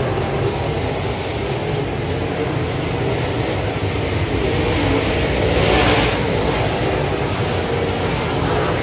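Several dirt-track race cars' V8 engines running hard on the track, a continuous mix of engine notes. About six seconds in, one car passes close and the sound briefly swells louder and brighter.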